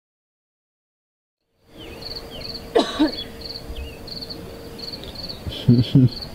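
Silence for the first second and a half, then crickets chirping in a steady run of short high pulses over outdoor hiss, with faint bird chirps and a low steady hum that stops about five seconds in. Short bursts of a person's voice come about three seconds in and twice near the end, and these are the loudest sounds.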